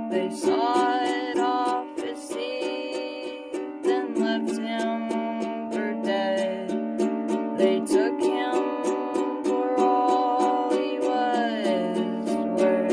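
A strummed string instrument playing a steady rhythm under a solo voice singing long held notes that glide between pitches.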